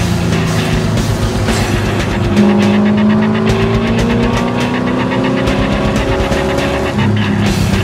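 Race car engine heard from inside the cabin under load, its note climbing steadily for several seconds and then dropping suddenly about seven seconds in as the driver shifts up.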